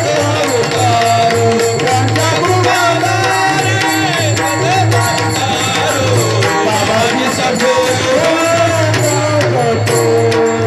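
Warkari kirtan devotional music: a singer carries a gliding melody over a hand drum and jingling cymbals keeping a steady beat.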